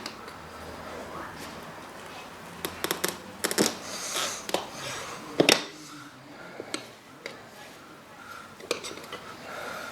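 Metal tyre levers clicking and clinking against a motorbike wheel rim, with a brief scrape, as a tyre is worked onto the rim. The knocks come in an uneven cluster a few seconds in, then a few single clicks.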